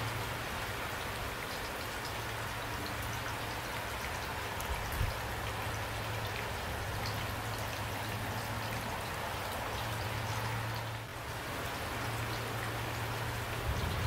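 Steady rain falling, a dense hiss flecked with individual drops ticking. It turns briefly softer about eleven seconds in.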